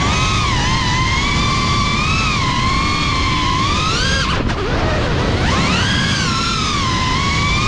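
Motors and propellers of a GEPRC Cinelog35 FPV cinewhoop drone whining, the pitch rising and falling with the throttle over a steady rumble of wind and motor noise. A little past four seconds in, the whine drops away briefly as the throttle is cut, then climbs back up.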